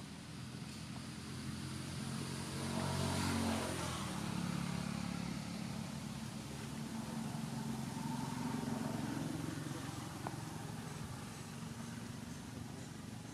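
A motor vehicle's engine running as it passes, swelling to its loudest about three and a half seconds in, with a second, smaller swell later.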